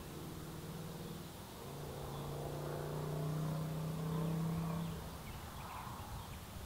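A low droning hum with a steady pitch that drops slightly after about a second and a half, grows louder, and stops about five seconds in, over a faint steady outdoor hiss.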